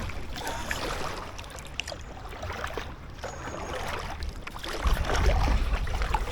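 Paddles dipping and splashing in canal water as a packraft is paddled along, with small knocks and drips. About five seconds in, a louder low rumble comes in over it.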